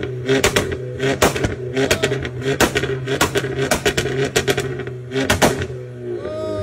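Volkswagen Scirocco's engine held at steady revs on launch control, with loud exhaust bangs and crackles, about two or three a second.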